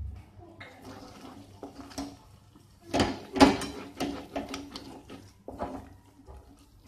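Wooden spatula stirring and scraping thick cooked gram-flour zunka around a pan. Irregular scrapes and knocks, busiest and loudest about three seconds in.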